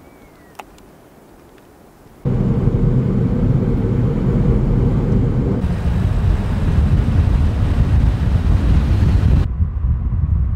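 A car driving at speed: a loud, steady rumble of road and wind noise that cuts in suddenly about two seconds in and changes abruptly twice. Before it, a short chirp and a single click.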